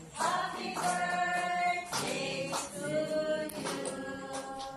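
A group of voices singing a church hymn in long held notes.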